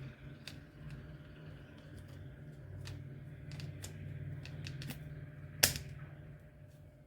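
Toshiba fully automatic washing machine running with a steady low hum, over scattered light clicks, with one sharp click about two-thirds of the way in.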